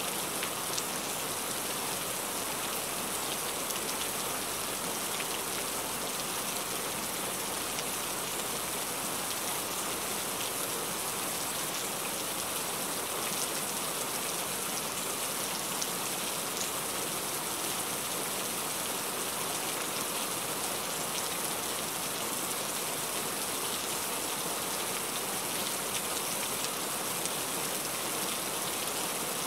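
Heavy rain falling steadily, a dense even hiss with scattered individual drops pattering on a surface.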